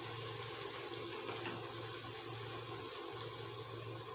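Chopped onion and green chilli sizzling in oil in a kadai over a gas flame, a steady even hiss while being sautéed.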